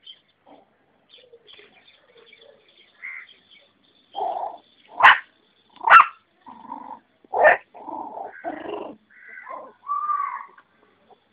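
Puppies play-fighting, giving a string of short yips and small barks. The sharpest come about halfway through, and a short pitched whine-like yelp comes near the end.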